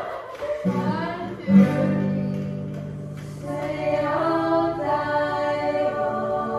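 Acoustic guitars and a ukulele strummed together in a casual jam, with a woman's voice coming in singing about halfway through.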